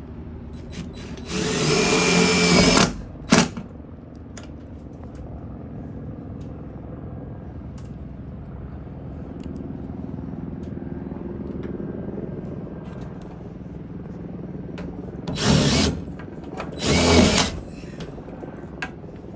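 Cordless drill driving self-tapping screws into the sheet-metal body of a school bus, in short bursts. There is one burst of about a second and a half near the start with a brief blip after it, and two shorter bursts near the end.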